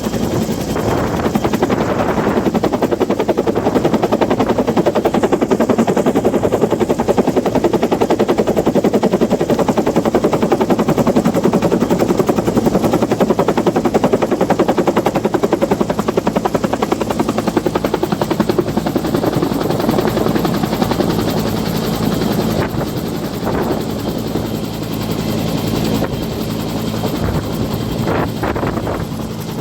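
Small engine-driven water pump running steadily, its engine making a fast, even chugging.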